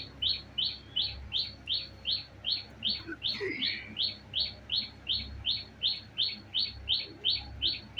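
A bird chirping in a steady, even rhythm, about three short high chirps a second, with one brief different call about three and a half seconds in.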